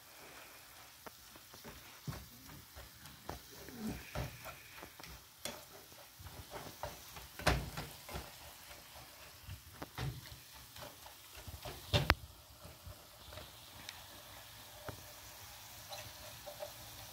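Ground beef frying in a skillet with a low sizzle, stirred and broken up with a plastic spatula that scrapes and taps against the pan in many short clicks. Two louder knocks stand out, one about halfway through and one about two-thirds of the way in.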